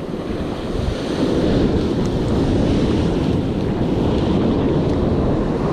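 Surf washing and breaking on a sandy beach, with wind buffeting the microphone; the rush grows louder about a second in and stays loud.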